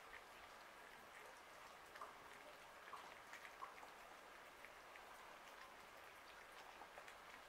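Faint, irregular small clicks over a low hiss: several cats chewing bread and cheese from a tray.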